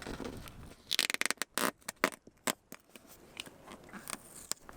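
An old adhesive sticker being peeled off a camper's painted wall: a crackling, tearing sound in quick runs of clicks, densest from about one to three seconds in, then a few scattered ticks.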